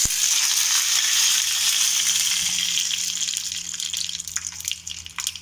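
Fresh curry leaves sizzling and spluttering in hot oil in a small aluminium tempering pan: a loud hiss that starts all at once, then slowly fades into scattered crackles and pops.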